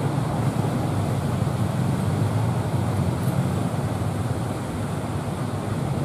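Heavy surf breaking along the shore together with wind: a steady low rushing noise with no let-up.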